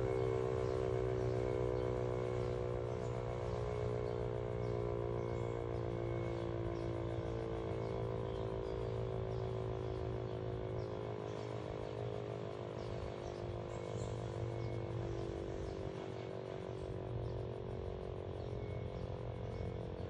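Sentry electromechanical outdoor warning siren, which the uploader takes for a 3V8-H, sounding a steady chord that slowly falls in pitch and fades: the siren winding down at the end of its test.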